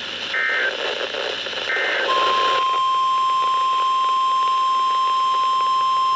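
NOAA Weather Radio alert signalling: two short screeching bursts of EAS data tones, the end-of-message code that closes a warning, then about two seconds in a steady 1050 Hz weather-radio alert tone begins and holds unchanged.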